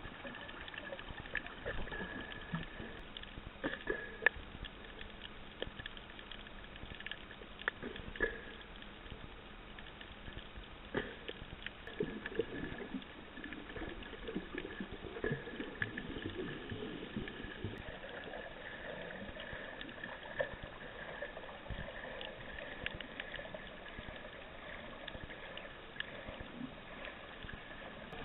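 Underwater ambience recorded with the camera submerged: muffled water gurgling and sloshing with scattered sharp clicks and crackles, over a faint steady high tone.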